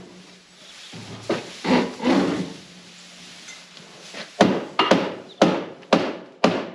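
A cattle feed barrier being knocked lower with a hand tool: a few scraping clunks, then from about four seconds in a run of sharp blows at roughly two a second.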